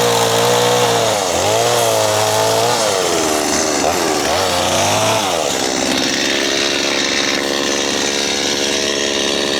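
Gas chainsaw cutting into a tree, its engine pitch dipping and recovering under load for the first five seconds or so, then running steadier.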